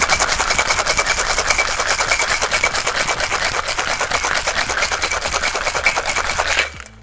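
Ice rattling in a stainless-steel cocktail shaker shaken hard and fast, a rapid even rattle of many strokes a second, stopping abruptly a little before the end.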